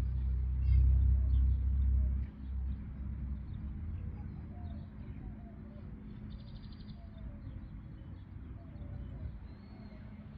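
Outdoor park ambience. A low rumble drops off sharply a little over two seconds in. Birds then chirp and call faintly, with one short rapid trill near the middle.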